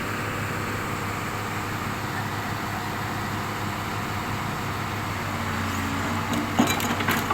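Excavator's diesel engine running steadily under work, with a higher steady tone joining about five seconds in and a few sharp knocks near the end.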